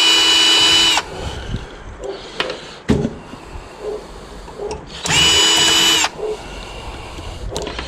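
Power drill driving out screws: two short runs of about a second each, a steady high whine that winds up and winds down, the second about five seconds in, with a few clicks and knocks of handling between.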